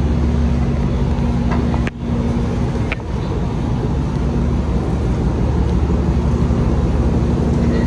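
Steady engine drone of a vehicle heard from inside, a low hum with road or running noise over it, briefly broken about two seconds in.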